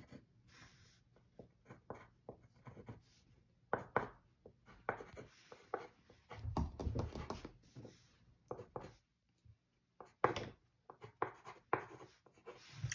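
Handwriting on paper at a desk: short, irregular scratching strokes of a pen or pencil on paper, with a low rumble of about a second and a half around the middle.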